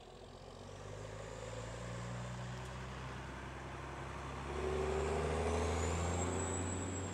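Semi-trailer truck driving past, its engine and tyres growing louder as it nears and loudest a little past the middle, with a faint high whine near the end as it moves away.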